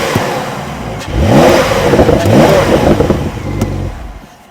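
Porsche 911 Carrera T (992) twin-turbo flat-six revved through its sport exhaust in a few quick blips, the pitch rising each time, then dying down near the end.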